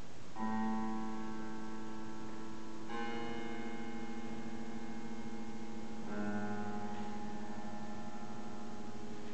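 Grand piano sounded from inside, on its strings. Three ringing notes or chords start about half a second, three seconds and six seconds in, each ringing on under the next.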